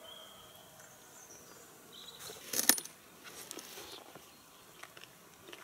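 Tableware clinking and tapping at an outdoor meal: a quick cluster of sharp clinks about halfway through, then lighter scattered taps of forks on plastic plates.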